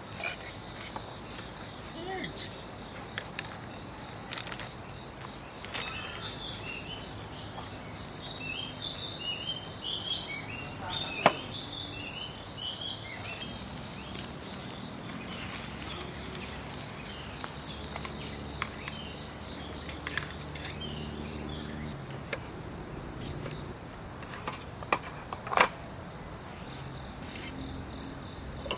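Steady chorus of forest insects, crickets among them, with a cluster of short chirps around the middle and a few sharp clicks.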